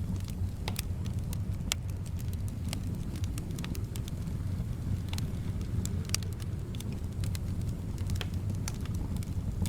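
Wood fire crackling, with irregular sharp pops and snaps over a steady low rumble of soft wind.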